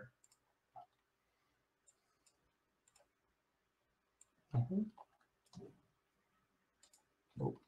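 Near silence broken by scattered faint clicks of a computer mouse, with a brief mutter of a man's voice about halfway through and again near the end.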